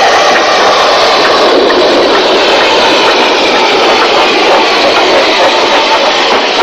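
Narrow-gauge steam locomotive No. 1 The Earl, a Beyer Peacock 0-6-0 tank engine, working a train away from a station with a loud, steady rush of steam and running noise.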